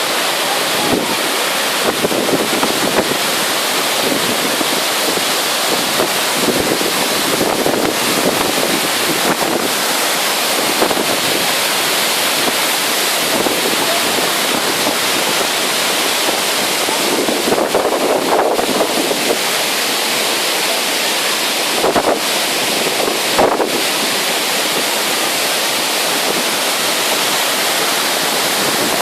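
Girlevik waterfall: a steady, loud rush of falling water, with a few brief knocks on the microphone in the second half.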